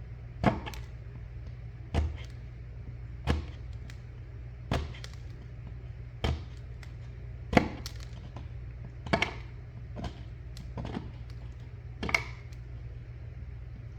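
Hand tool, most likely a chisel, struck again and again to chip away the wall around a recessed electrical box. About ten sharp knocks come roughly every one and a half seconds.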